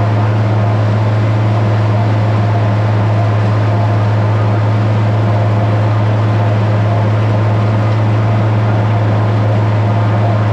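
International 1256 tractor and New Holland 790 forage harvester running steadily while chopping standing corn: a loud, even drone with a strong low hum.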